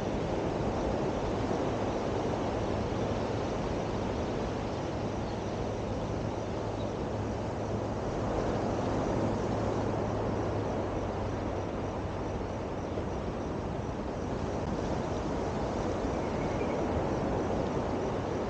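Steady outdoor rushing noise of wind and sea surf along the coast, with a low steady hum underneath.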